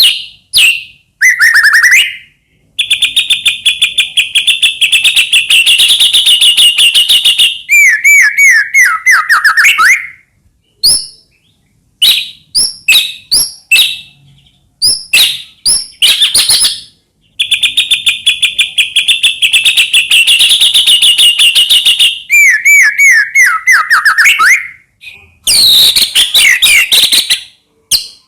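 White-rumped shama (murai batu) singing loudly and continuously: long, rapid chattering trills, broken by swooping whistles that dip in pitch and by short sharp notes. The same run of phrases comes round again about halfway through.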